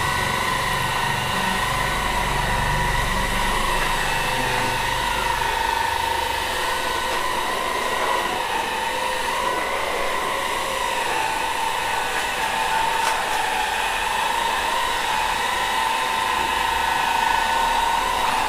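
AGARO cordless stick vacuum cleaner's brushless motor running with a steady high whine while its motorised roller brush vacuums dust off a tiled floor.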